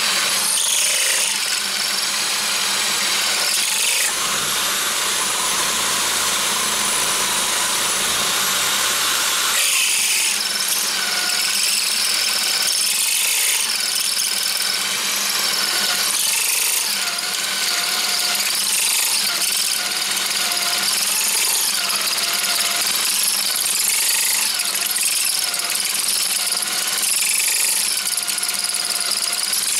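Electric power drill running steadily, turning a toolpost drill spindle as its drill bit cuts into 316 stainless steel. Coolant mist hisses from the spray nozzle, and faint wavering whines come and go as the cut goes on.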